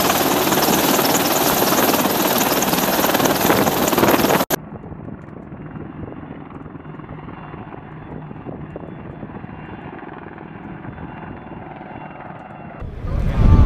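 AH-64E Apache attack helicopter hovering close by, its rotor and engine noise loud and full. About four and a half seconds in, the sound cuts suddenly to a quieter, duller steady drone of several Apaches flying in formation at a distance. A loud low rumble starts near the end.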